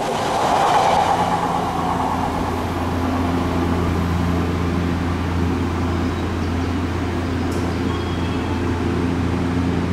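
Odakyu 1000 series electric train pulling into the platform and coming to a stop. A loud rushing of wheels on rail peaks in the first couple of seconds and fades into a steady low hum, with a few fixed tones, from the standing train's onboard equipment.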